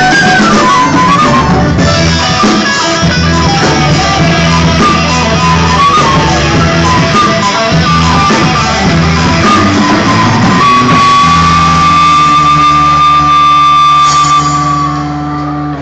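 Irish music with guitar accompaniment and a quick, busy melody line. It closes on one long held high note that fades away near the end.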